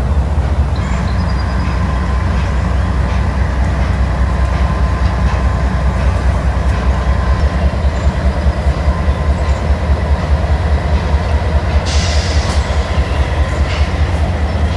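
Freight train of loaded coal hopper cars rolling past, a steady low rumble with a faint, held wheel squeal.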